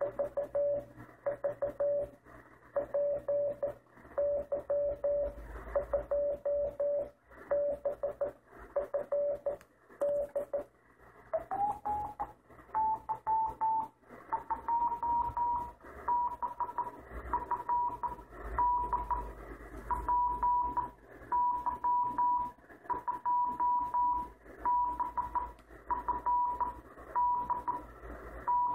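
Morse code from the PY2FD 432.300 MHz UHF beacon, received in CW mode on a Kenwood multiband transceiver: a keyed beep tone switching on and off over band hiss. About twelve seconds in, the note slides up to a higher pitch as the receiver is retuned slightly lower in frequency.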